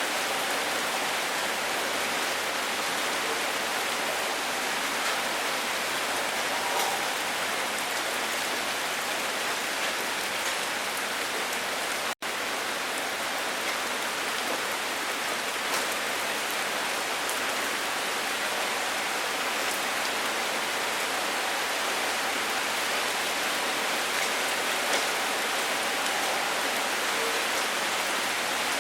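Steady, dense rainfall hissing on a surface, with faint scattered drop ticks. It drops out for an instant about twelve seconds in, then carries on unchanged.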